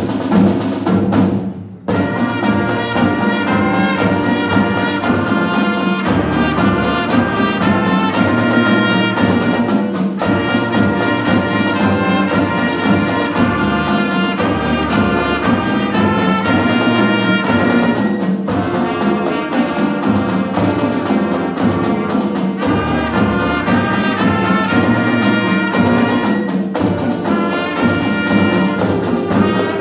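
A band of trumpets, trombones, saxophones and a sousaphone playing. A couple of sharp drum hits open it, and the full band comes in about two seconds in.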